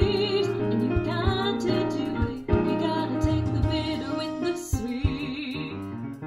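A woman singing long, wavering notes without clear words over a piano accompaniment.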